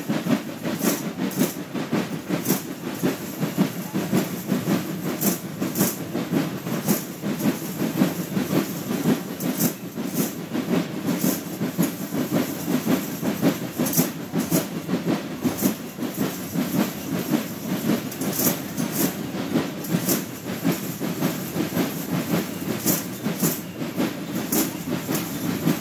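Street parade noise: a dense, steady clatter with sharp hissing swishes every second or two, often in pairs about half a second apart.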